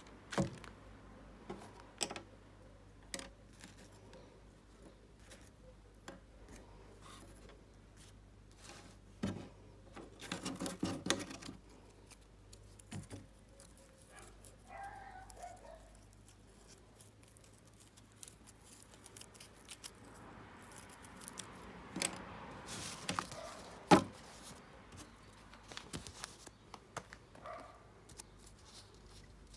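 Hands handling the thin wooden sticks and printed card sheet of a model-plane kit: scattered light clicks and taps of wood on wood and on the table, with stretches of paper rustling and one sharper click late on.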